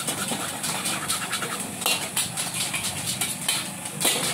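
Stir-frying in a wok over a gas burner: a metal spatula scraping and clanking against the wok, with a steady sizzling hiss under it. Several sharp clanks stand out, the loudest about two seconds in and near the end, over background crowd chatter.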